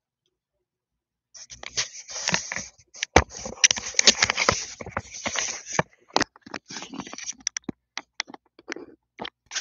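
Handling noise from a camera being picked up and turned around: scraping and rubbing against the microphone with many sharp clicks and knocks, starting about a second and a half in.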